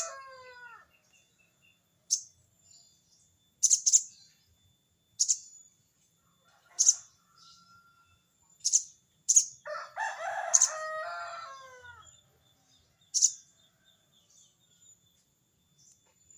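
Sogon bird calling: sharp, very high chips spaced a second or two apart, and about ten seconds in one longer, harsh chattering call that falls in pitch, the 'crecet cerecet' call of a sogon challenging a rival.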